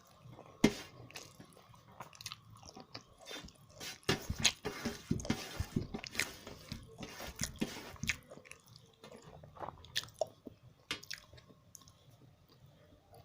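A person chewing and biting food close to the microphone, with irregular wet mouth clicks and smacks and one sharp click about half a second in.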